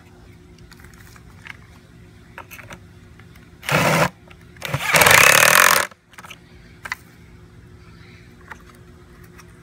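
Cordless drill driving a bolt in two bursts: a short one about three and a half seconds in, then a longer one of about a second just after. Small clicks from handling the parts come before and after.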